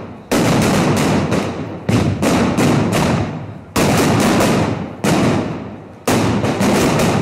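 Firecrackers exploding one after another on a town square, a sharp bang about every second, each trailing off in crackle and echo, with a few bangs coming close together near the end.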